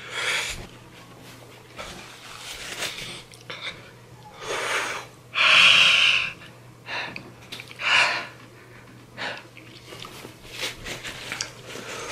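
A man breathing hard through an open mouth: hissing intakes and loud exhales, the longest and loudest exhale about halfway through. He is trying to cool a tongue burning from spicy chips.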